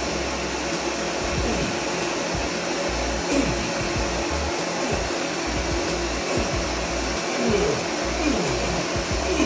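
Ninja countertop blender running steadily at high speed, its motor and blades churning a thick shake of oat milk, oats, banana, peanut butter and honey.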